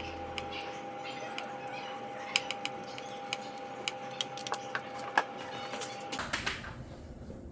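Scattered light mechanical clicks and taps over a faint steady hum; the hum stops about six seconds in.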